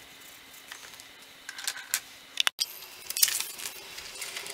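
Paper rustling and short scratchy handling sounds as the pages of a bound bullet journal are turned, with a sharp click about halfway through, right before the sound cuts out for an instant.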